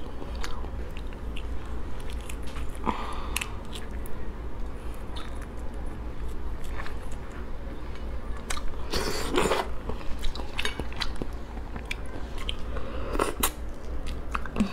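Close-up eating sounds of a lobster being eaten by hand: wet chewing and biting with many small clicks and crackles of shell, and a couple of longer slurps about nine and thirteen seconds in as meat is sucked from the legs.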